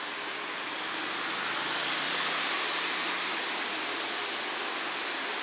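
Two-car KiHa 47 diesel railcar set approaching slowly through yard pointwork: a low diesel engine drone swells about a second and a half in and fades again, under a steady broad hiss of rolling and background noise.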